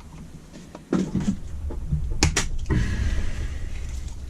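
Sharp metallic clicks and a scrape as hand tools work a small part out of a Holley 390 cfm four-barrel carburettor: a few light clicks, two louder ones a little past two seconds in, then rough scraping that fades.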